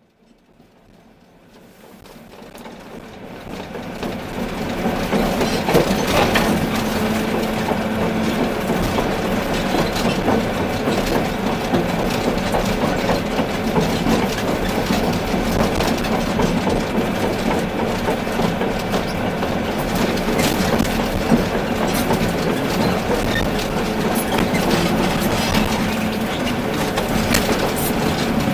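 Volvo EC380D excavator working: a steady diesel engine and hydraulic drone with scattered metallic knocks and rattles, fading in over the first few seconds.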